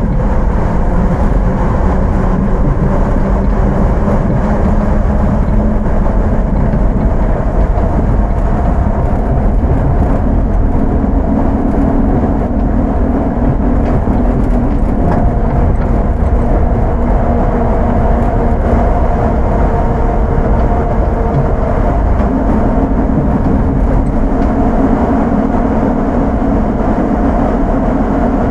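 Onboard running sound of an Astram Line 6000-series rubber-tyred guideway train under thyristor chopper control: a steady rumble of the tyres on the guideway. Over it comes the chopper's hum, at a couple of pitches that come and go and shift partway through.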